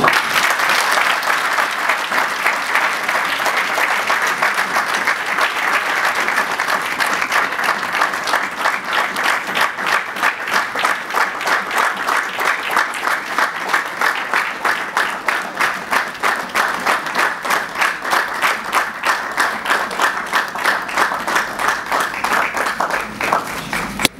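A large audience applauding. The clapping settles into a steady rhythm in unison, about two and a half claps a second, from around eight seconds in, and stops abruptly at the very end.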